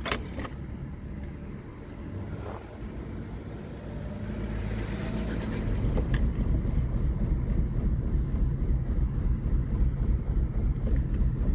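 A 2005 Nissan Altima's four-cylinder engine is started with only one ignition coil connected. About four seconds in it catches and keeps running on the one firing cylinder, with a heavy low rumble that builds and then holds.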